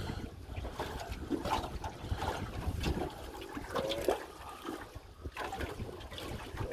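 Seawater lapping and splashing irregularly against the hull of a small boat.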